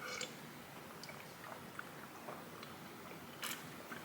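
A person taking a drink: faint swallowing and small mouth sounds, with a short, louder noise about three and a half seconds in.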